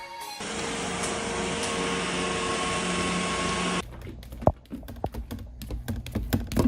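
A steady motor-like whooshing noise that starts just after the beginning and cuts off suddenly a little before four seconds in, followed by scattered light clicks and taps, with one sharper click.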